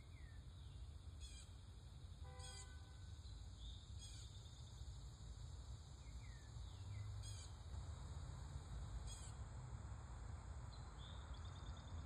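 Faint backyard birdsong: scattered short descending chirps, a few brief buzzy high notes and a short trill near the end, over a steady low rumble of distant traffic.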